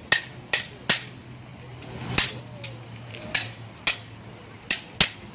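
Gatka sparring sticks striking each other and small round hand shields: a quick, uneven series of about nine sharp clacks.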